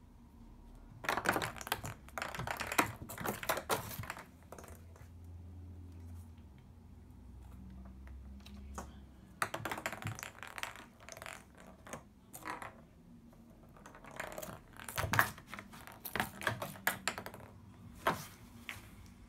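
A cat's claws skittering and tapping on the hard surface of an empty bathtub as it plays, in three spells of rapid clicking: about a second in, again around ten seconds in, and a longer one from about fifteen to eighteen seconds in.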